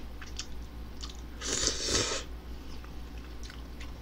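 Mouth eating instant ramen noodles: one loud slurp about a second and a half in, lasting under a second, with faint chewing and small clicks around it.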